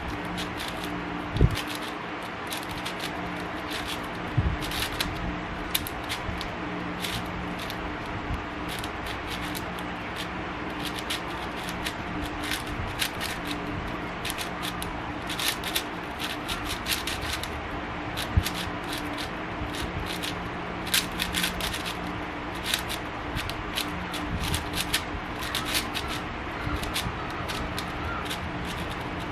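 Speed cube being turned fast during a solve: quick runs of plastic clicks and clacks from the layers snapping round, with a few louder knocks. A steady low hum runs underneath.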